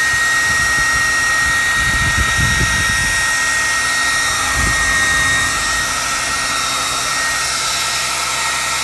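Hair dryer blowing on a fresh coat of paint on a crankbait to dry it: a steady rush of air with a high, even whine, and a few low rumbles a couple of seconds in.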